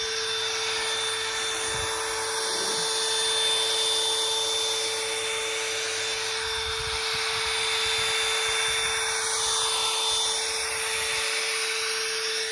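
Electric drill spinning a foam polishing pad, buffing rubbing compound into a jet ski hull: a steady motor whine that stops suddenly at the end.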